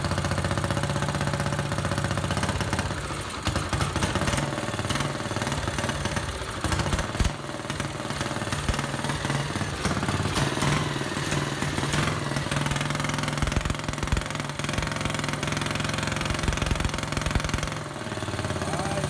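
Small single-cylinder engine of a quarter midget race car running just after its first start-up, its speed rising and falling now and then.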